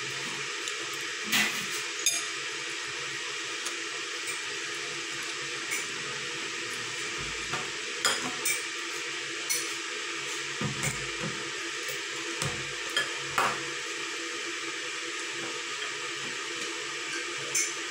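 An orange plastic spoon clicking and scraping against a ceramic bowl of noodles now and then, a dozen or so short clicks, over a steady background hum.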